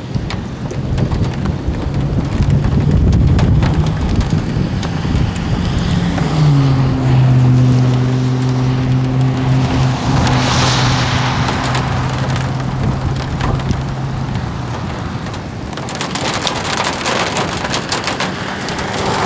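Heavy rain falling on and around a car, with many sharp drop hits, and a low rumble of thunder in the first few seconds. A steady low hum sets in about six seconds in and stops around fourteen seconds, and the drop hits come thicker near the end.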